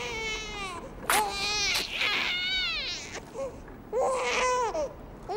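A baby crying in several cries, each rising and falling in pitch; the loudest starts suddenly about a second in.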